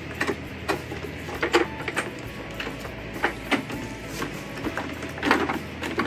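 Irregular clicks and knocks of a Sanitaire commercial upright vacuum being handled as its bottom plate is snapped back onto the base, with the strongest knocks about five seconds in.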